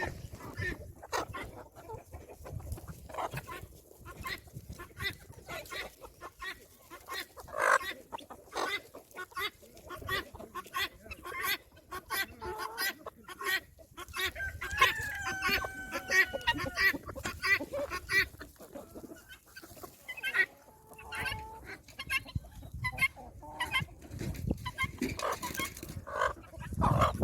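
A flock of chickens clucking as they feed, with many short sharp sounds throughout. About halfway through a rooster crows once, a long call of about two seconds that falls in pitch at the end.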